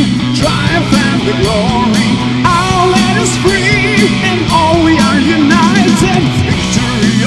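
Heavy metal song in an instrumental break: a lead guitar plays a melody with bends and wide vibrato over distorted rhythm guitar, bass and drums with steady cymbals.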